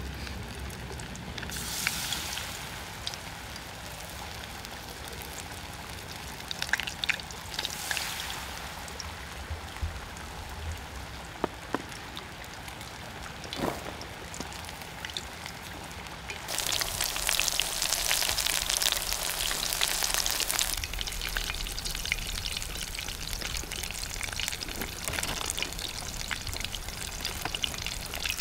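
Tempura deep-frying in a pot of hot oil. There are a few short spells of sizzling, then a louder spell of sizzling starts about two-thirds through as battered vegetables go in, and it settles into a steady sizzle.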